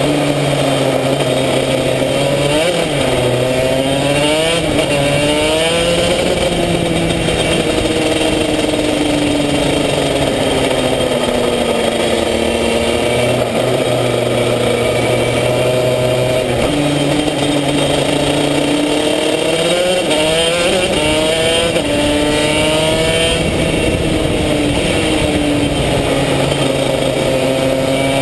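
Onboard sound of a racing kart's two-stroke engine at speed, its pitch dropping as the kart slows into corners and climbing again as it accelerates out, several times over.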